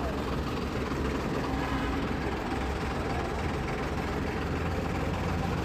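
Street traffic: a steady low engine rumble with an even background hiss and no distinct events.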